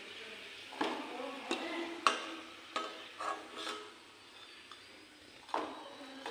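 A perforated metal skimmer scraping and clinking against a steel wok as fried semolina sweets are lifted out of the hot oil: several short knocks and scrapes over a faint sizzle of the oil.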